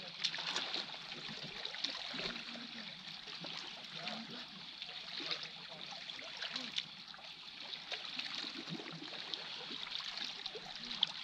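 Small sea waves lapping and trickling among shoreline boulders, a steady wash with scattered little splashes.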